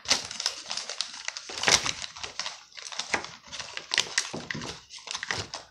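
Paper bag crinkling and rustling as a hand rummages inside it, with plastic markers clicking and knocking together.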